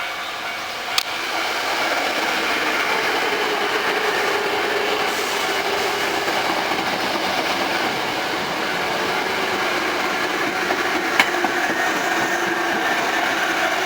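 Hankyu 5300 series seven-car electric train running past at a level crossing: steady wheel-on-rail and running noise, with a sharp click about a second in and another near the end. The crossing's warning bell rings faintly under it.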